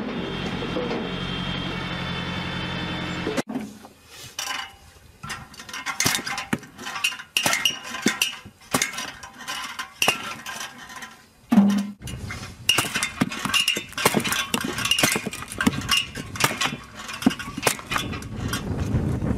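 A hydraulic log splitter runs with a steady drone as it drives a log through a multi-way wedge. After an abrupt change about three and a half seconds in, a hand-lever log splitter takes over: repeated irregular sharp knocks and clinks of the metal blade and lever striking and splitting small pieces of wood.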